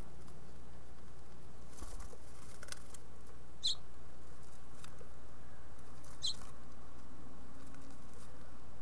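House finch fledglings shuffling inside a wooden nest box: faint scratching and tapping of feet on the box floor, with two short high chirps about two and a half seconds apart, over a steady low hum.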